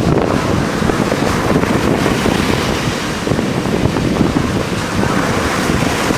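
Large sea waves breaking and washing in, with strong wind buffeting the microphone.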